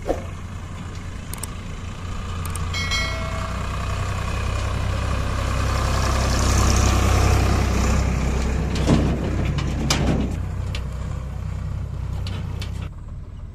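Eicher 5660 tractor's diesel engine running under load as it hauls a loaded trolley past, growing louder to a peak about halfway through and then fading away.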